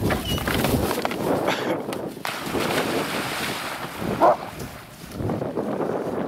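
Dogs splashing into a pond and swimming, the water churning, with wind noise on the microphone. A short high cry about four seconds in.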